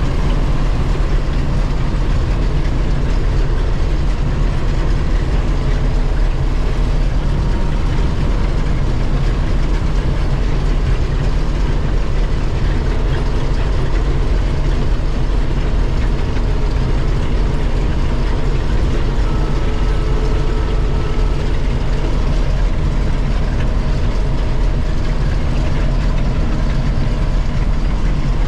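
Combine harvester running steadily, a continuous low engine drone.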